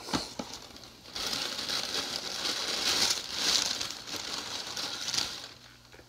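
Packaging being handled: a couple of knocks, then a few seconds of loud rustling and crinkling that stops near the end.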